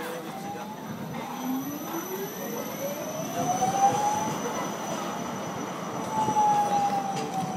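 Electric tram passing close by. Its motor whine rises in pitch over the first few seconds, and a second whine falls slightly near the end, over the rumble of the tram's running.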